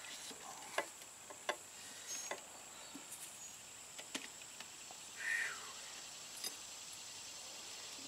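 Tire irons clicking and scraping against a scooter's front wheel rim as the tire bead is worked over it a little at a time, with a brief squeak about five seconds in.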